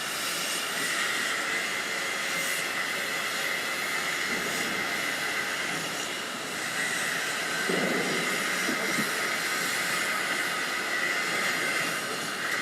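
Shipyard working noise: a steady mechanical hiss with a constant high whine, and a brief lower rumble about eight seconds in.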